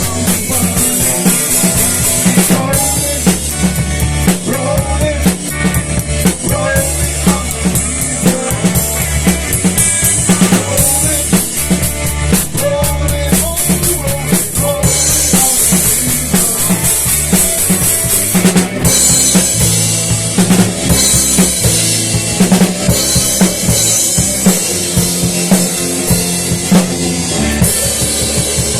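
Instrumental band music without singing: a drum kit with bass drum and snare hits and cymbals, over a bass line and other pitched instruments.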